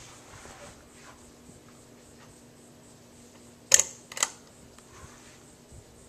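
Quorum Capri ceiling fan running with a low, steady hum. About two-thirds of the way through, two sharp clicks about half a second apart stand out above it.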